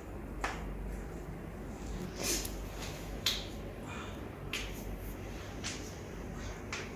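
About ten short, sharp clicks and snaps, scattered irregularly and spaced roughly half a second to a second apart, over a faint steady hiss.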